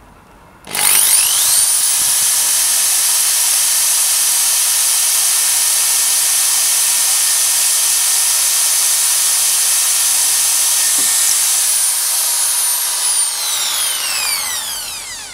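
Makita corded hammer drill with a wood bit, starting about a second in with a rising whine and running at steady high speed as it bores through a piece of wood held in a vise. Over the last few seconds the motor winds down with a falling whine.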